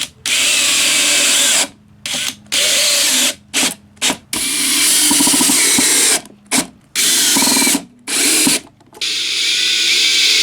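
Power drill driving 1 3/4-inch screws into the wooden joints of a beehive box, running in repeated stop-start bursts with a whine, some a fraction of a second, the longest about two seconds.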